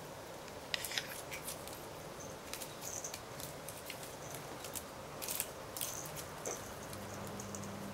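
A cat batting and pawing at a teaser toy on a cord over a bamboo mat: scattered light rustles, taps and clicks of the toy's streamers and the paws. A low steady hum comes in near the end.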